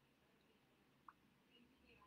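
Near silence: room tone, with one short, faint high blip about halfway through.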